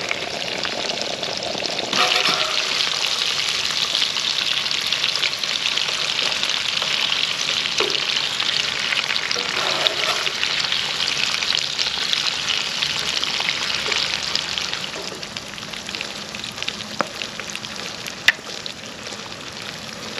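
Food frying in a pan, a steady sizzle that grows louder about two seconds in and eases off near the end, with a few sharp clicks.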